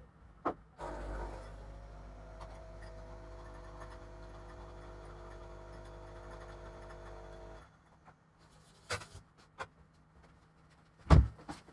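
A steady machine hum, a low drone with faint even tones above it, starts about a second in and cuts off suddenly after about seven seconds. A few sharp knocks follow near the end, the loudest just before it ends.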